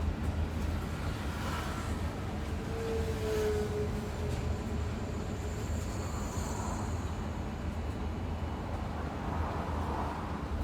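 Inside a moving bus: a steady low rumble of engine and road noise. A short, steady higher note sounds about three seconds in.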